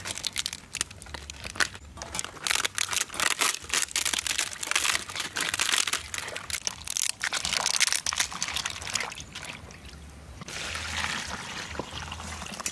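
Water splashing and trickling, with irregular crinkly handling noises.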